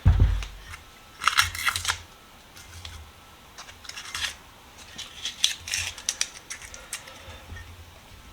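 Masking tape being peeled off a freshly painted vise in several short ripping bursts, with a dull knock right at the start.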